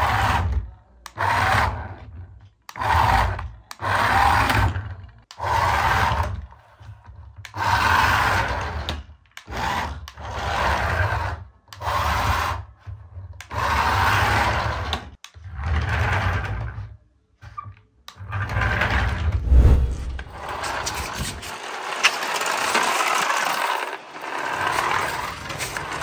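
Toy RC car's small electric drive motor and plastic gearbox whirring in short bursts, about a dozen of them a second or so each, starting and stopping as the remote's buttons are pressed and released. About two-thirds of the way through it changes to a steady, continuous whirr as a car drives on rough concrete.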